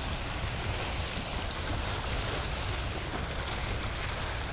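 Small sea waves washing and breaking against a rock shelf, a steady rushing wash, with a low wind rumble on the microphone.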